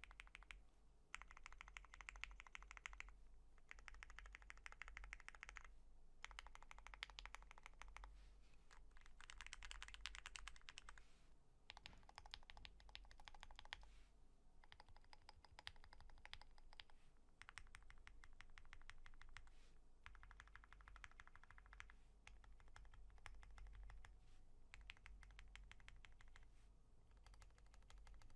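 Quiet clacking of a custom mechanical keyboard's modifier keys: lubed Lavender switches on a POM plate with GMK keycaps, the long keys steadied by lubed Owlstabs. Each key is pressed rapidly over and over in a run lasting a second or two, with short pauses between runs, and the sound shifts slightly from one key to the next.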